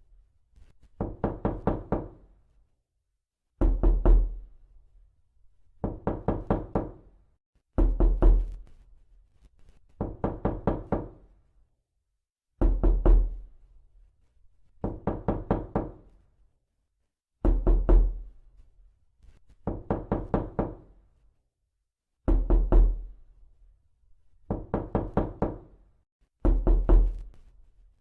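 Knocking on a door in quick bursts of four or five raps, a heavier, deeper round alternating with a lighter one, a burst about every two seconds with silence between, repeating evenly as a loop.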